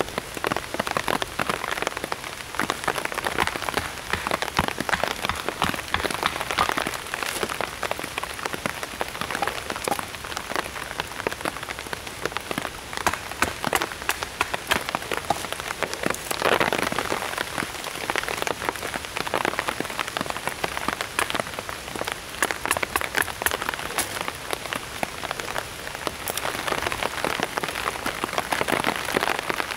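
Rain pattering on a survival-blanket shelter: a dense, steady spread of sharp drop ticks that swells briefly about halfway through.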